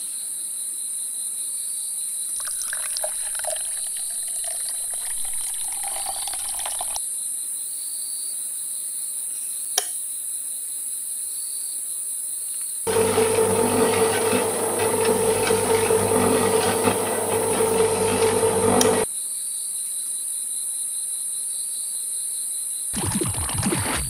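Small electric motor of a miniature home-made concrete mixer runs with a steady hum for about six seconds in the middle, turning its drum. Before it, a spoon scrapes faintly through cement mix in the drum. Near the end, wet concrete pours from the tipped drum into a small plastic bucket, over a steady high-pitched background hiss.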